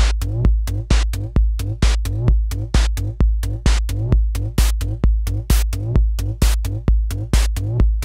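Looping electronic drum pattern: a deep kick about twice a second with short bright noise hits of hi-hat and a snare synthesised from a white-noise oscillator in Native Instruments Massive.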